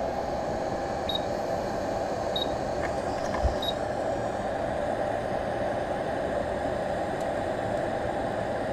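Quick 861DW hot air rework station blowing a steady hiss of hot air, preheating a circuit board and melting the flux. Three short high beeps sound about a second apart in the first few seconds.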